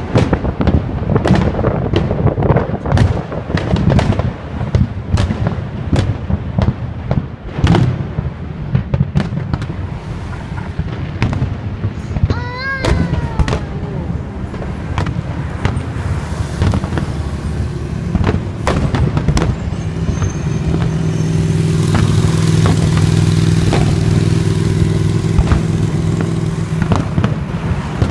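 Fireworks going off in quick succession: many sharp bangs and crackles. There is a short wavering whistle about twelve seconds in, and a steady low drone for several seconds near the end.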